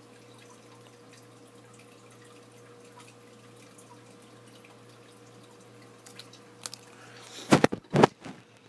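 Faint steady electrical hum with a few light stylus taps on a touchscreen. Near the end, several loud knocks and scrapes from the camera being handled and swung.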